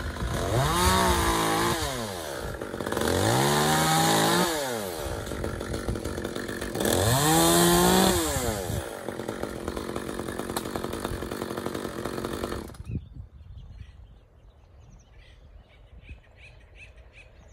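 Gas chainsaw idling and revved up three times, its engine pitch rising and falling each time, then cut off abruptly about thirteen seconds in. Faint bird chirps follow.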